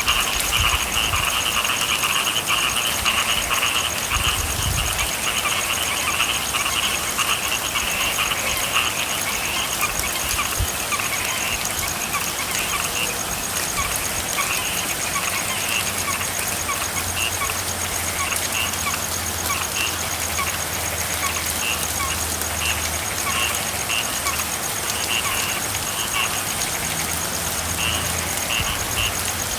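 A chorus of frogs calling over steady rainfall. The chorus is dense at first and thins to separate, spaced calls after about ten seconds. A low steady hum comes in about halfway through.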